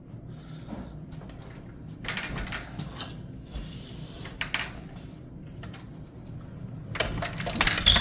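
A newly refitted door deadbolt being tried out: the bolt and its key or turn work back and forth in short bursts of metallic clicks and scrapes, the busiest and loudest cluster near the end. The lock is working properly.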